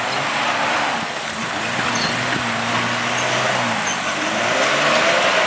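Mitsubishi Pajero four-wheel drive's engine running at low revs as it crawls down a rutted muddy track, its pitch rising and falling a little as the driver works the throttle.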